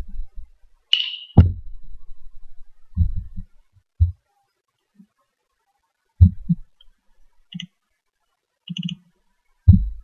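Scattered computer mouse clicks and low desk knocks picked up by the microphone, about ten short separate sounds with silent gaps between, the loudest about a second in and again near the middle and the end.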